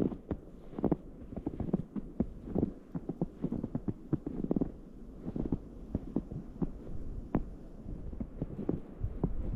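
Footsteps crunching in snow, a steady walking pace of roughly one step a second, each step a short muffled crunch.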